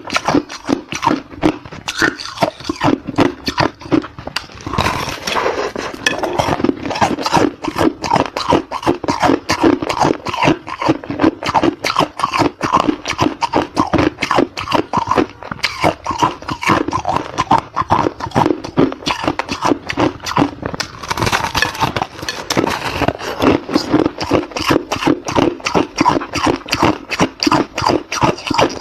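Hard ice being crunched and chewed in the mouth, close to the microphone: a dense, continuous run of rapid sharp crunches.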